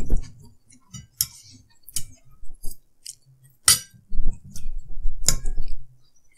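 Forks clicking and clinking against ceramic plates and a drinking glass during a meal, a string of light ticks with a few sharp, loud clinks, the loudest about halfway through and again a second and a half later.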